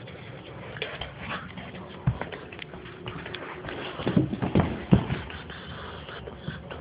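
Irregular taps, clicks and knocks from small objects being handled and set down on a surface, with a cluster of heavier knocks about four to five seconds in.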